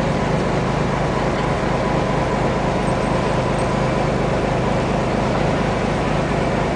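Passenger boat's engine running steadily, a constant hum heard from on board.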